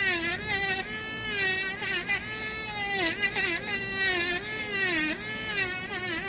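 Handheld rotary tool (Dremel) with a sanding band grinding down a thick ram's horn toenail: a buzzing whine that dips in pitch and recovers again and again as the band is pressed onto the nail and eased off.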